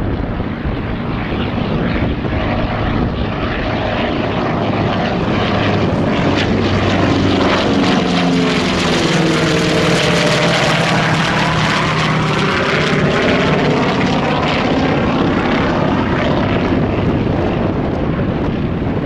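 Twin radial-engine propeller plane flying low past and overhead. The engine and propeller drone grows louder toward the middle as it passes overhead, then drops in pitch as it moves away.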